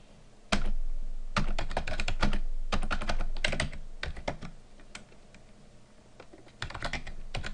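Typing on a computer keyboard: quick runs of keystrokes, thinning out past the middle, then picking up again near the end.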